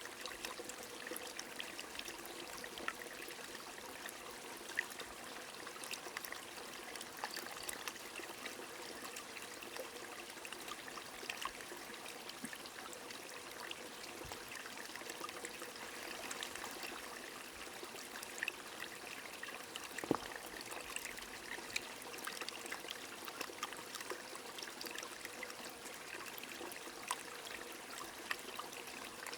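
Rain falling over a running stream: a steady wash of flowing water, dotted with many small drop ticks.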